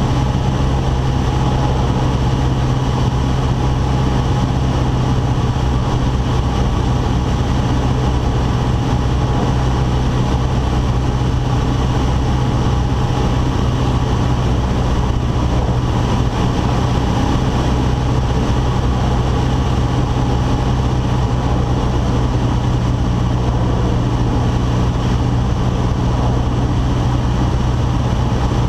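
1981 Cessna 152's four-cylinder Lycoming O-235 engine and propeller running steadily in flight, a loud, even drone whose pitch does not change.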